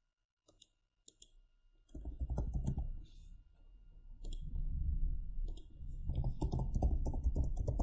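Computer keyboard typing and mouse clicks: a few separate clicks early, then from about two seconds in a dense run of quick key strokes.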